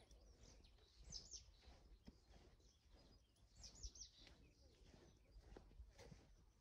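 Near silence outdoors with faint bird chirps: two brief clusters of quick, high, falling notes, about a second in and again near four seconds in.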